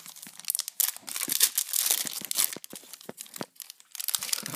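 Foil wrapper of a Yu-Gi-Oh booster pack crinkling in crackly bursts as it is handled and torn open, with a brief lull near the end.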